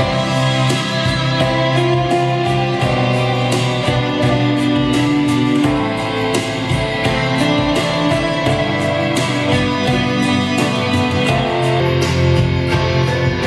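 Guitar-led music with a steady beat, played through a two-way speaker driven by a home-built LM3886 bi-amplifier, with the woofer and tweeter each on their own amplifier channel.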